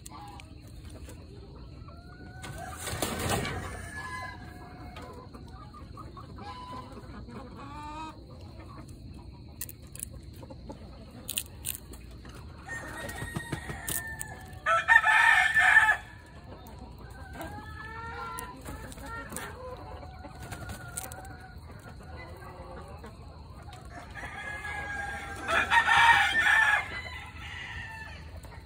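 Chickens clucking, with a rooster crowing twice, once about halfway through and again near the end; the crows are the loudest sounds.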